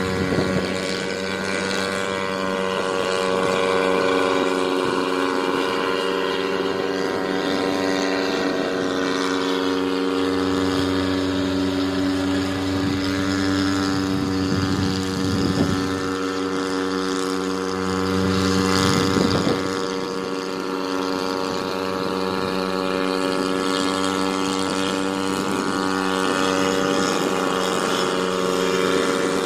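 REMO-H unmanned crop-spraying helicopter running: a steady engine and rotor drone with an even, many-toned hum that swells briefly about two-thirds of the way through.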